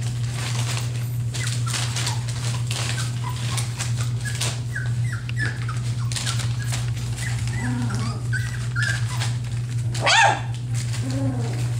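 Three-week-old F1B standard goldendoodle puppies giving short high squeaks and whimpers, with one louder yelp about ten seconds in. Paws scratch and crinkle the newspaper bedding over a steady low hum.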